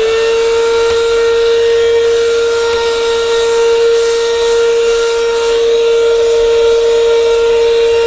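Afbest cordless handheld vacuum cleaner running at full speed with a steady, high whistling whine, just after its motor has spun up. Its brush nozzle is sucking fine resin and plywood sanding dust off a belt sander's belt.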